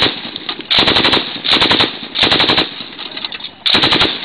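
Machine gun firing in short bursts of about five rounds each: four bursts of about half a second, with echo trailing between them, after the end of a burst at the very start.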